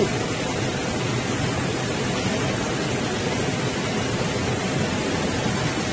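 Steady rushing of river water, an even unbroken noise.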